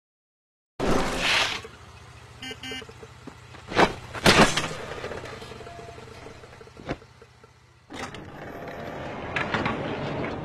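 Sound effects of a small three-wheeled police cart driving, its motor a steady low hum. A loud noisy burst comes about a second in, then several sharp pops and cracks around the middle, and more noise builds near the end.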